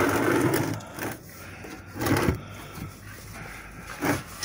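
Scraping and rustling handling noises as a plastic drain container is pushed into place under the truck: a longer scrape at the start, then two short scrapes or knocks.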